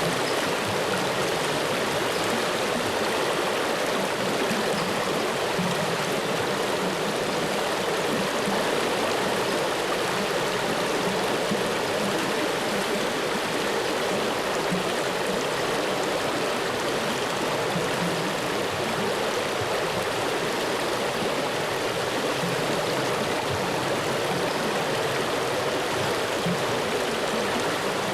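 Flowing water running steadily and evenly, an unbroken stream-like rush with no pauses or changes.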